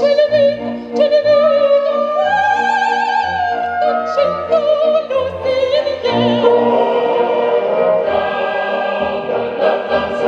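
A woman singing in operatic style, high sustained notes with a wide vibrato, over musical accompaniment.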